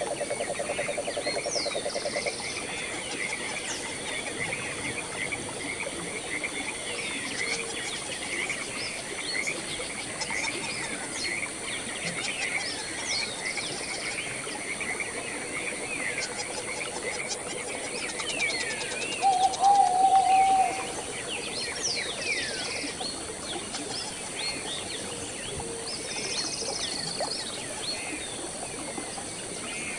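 Birds chirping and calling all through, many short rising and falling notes, over a steady high hiss. A rapid pulsing trill sounds for the first couple of seconds, and one louder, lower call stands out about twenty seconds in.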